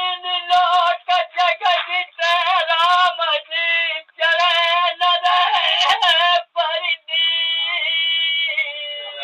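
Bagheli birha folk singing: a voice sings a melodic line in short, ornamented phrases with brief breaks. About seven seconds in it settles into steadier, long-held notes. The sound is thin, with no high end.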